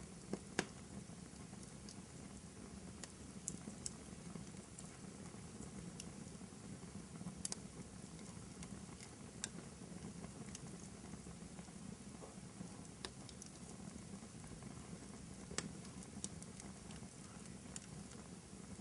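Fireplace fire crackling: a steady low rumble of burning with irregular sharp pops and snaps, the loudest just after the start and another near the end.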